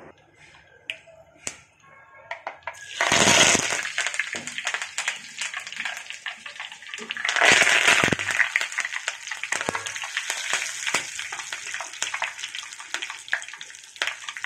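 Mustard seeds spluttering in hot oil in a small tadka pan, first a few sharp pops. About three seconds in, and again around seven and a half seconds in, a loud hiss of sizzling rises as green chillies and curry leaves hit the oil, then it settles into steady crackling.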